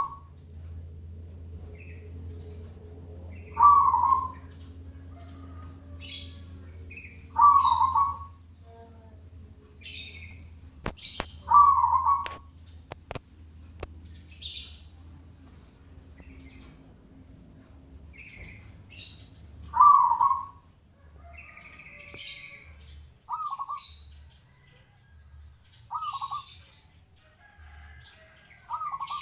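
Caged zebra doves (perkutut) cooing: a loud, short rolling coo comes every four seconds or so, with fainter coos from other doves later on. Thin high chirps sound between the coos.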